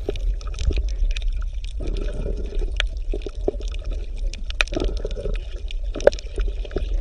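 Water bubbling and gurgling over a steady low rumble, with many small scattered clicks and pops.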